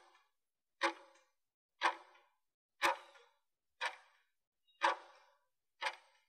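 Countdown timer's clock-tick sound effect, one sharp tick every second with a short ringing tail, marking the last seconds of a work interval.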